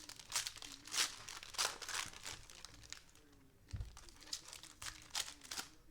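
Trading-card pack wrappers being torn open and crinkled by hand: two spells of crackly tearing and rustling, the second starting a little before the middle.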